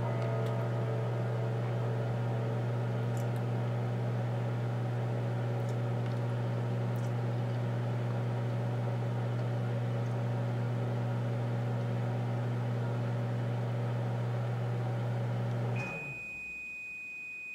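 A household appliance hums steadily and low, then cuts off near the end, and a single long, high electronic beep sounds at once for almost two seconds.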